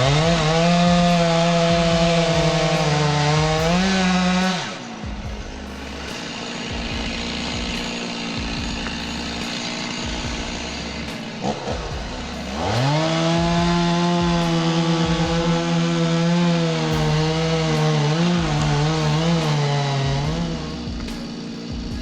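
Chainsaw revved up to full throttle and held, twice: first for about four seconds at the start, then again for about eight seconds from about halfway. Between the two it runs quieter at low revs.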